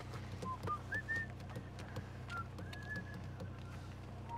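A person whistling a few short notes of a tune, one held a little longer near the end, over the low steady hum of the car and light clicks of handling.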